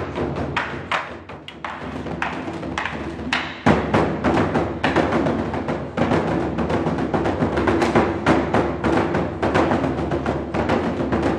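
Korean buk barrel drums struck with wooden sticks by two players. Sparse, uneven strokes at first, then a loud hit about four seconds in starts a faster, denser rhythm with a steady held tone underneath.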